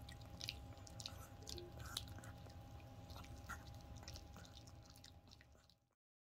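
Long-haired chihuahua faintly chewing a homemade sweet pumpkin milk chew: soft, irregular crunching and clicking bites that cut off suddenly near the end.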